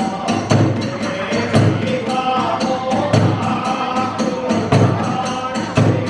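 Hiroshima kagura hayashi music accompanying a dance. A large drum beats heavily every half second or so, small hand cymbals clash in a fast, even rhythm, and a wavering melody line runs above them.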